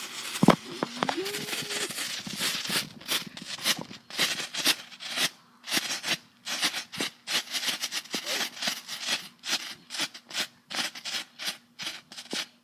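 Small ground firework going off: one sharp bang about half a second in, then a long run of rapid crackling pops that gradually thin out.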